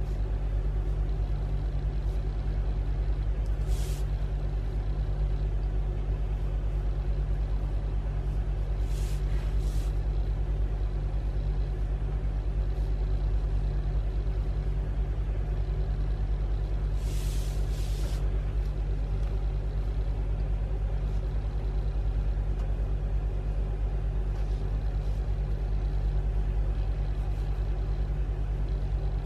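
A steady low hum that does not change, with three brief soft hisses about four, nine and seventeen seconds in.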